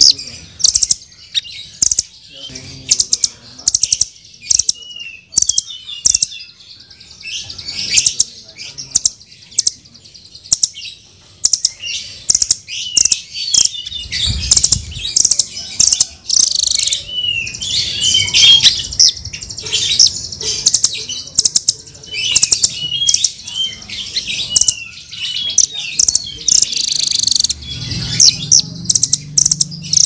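Blue nuthatch calling: a rapid series of sharp, high chips and short slurred notes, coming thicker from about halfway through.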